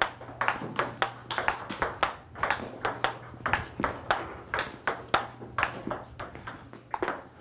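Table tennis rally of forehand drives: the ball clicking off the paddles and bouncing on the table in a steady rhythm, about four impacts a second. A faint steady low hum underneath.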